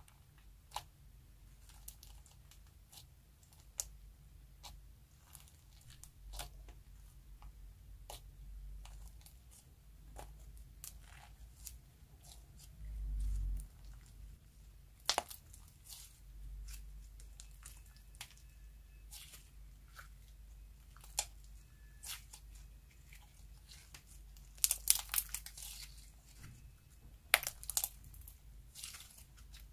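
Hands kneading and stretching clear slime packed with star-shaped sequins: scattered sticky clicks and crackles, growing into louder runs of pops near the end. A muffled low thump about halfway through.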